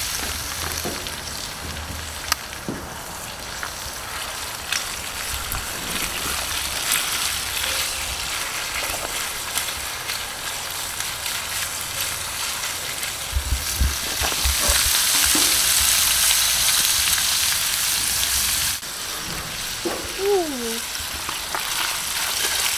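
Squid frying in olive oil, garlic and butter in a cast-iron skillet, a steady sizzle with a spatula stirring and scraping the pan now and then. The sizzle swells about two-thirds of the way through, then drops suddenly.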